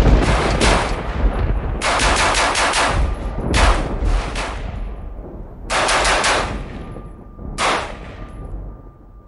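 AR-15 rifle fired in quick strings of shots, about five strings with short pauses between them.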